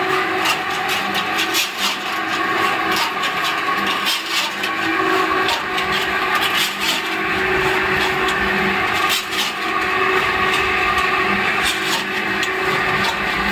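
Electric pan mixer for lime mortar running: a steady motor and gearbox hum under the grinding and scraping of the heavy roller and scraper blades working the damp lime, sand and soil mix around the steel pan, with frequent irregular clicks and knocks.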